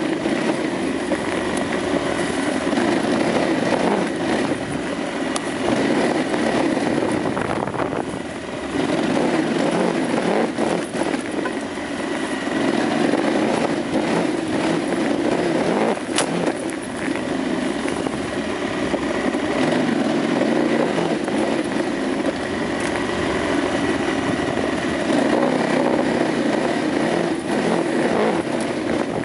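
KTM 950 Adventure's V-twin engine running continuously under varying throttle while riding a dirt trail, with a brief easing of throttle about eight seconds in.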